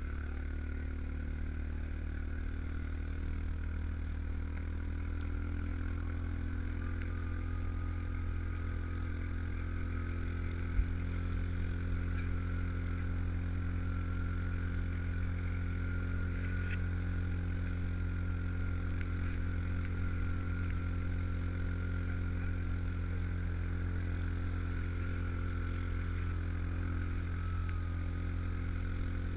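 Yamaha Rhino 700 side-by-side on Camoplast Tatou 4S tracks driving steadily through snow: its single-cylinder engine runs at an even pitch, with a steady high whine over it. One short click comes about eleven seconds in.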